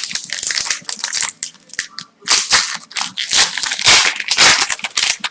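Crinkling and tearing of a hockey card pack's plastic wrapper as it is ripped open and crumpled, loudest in the second half.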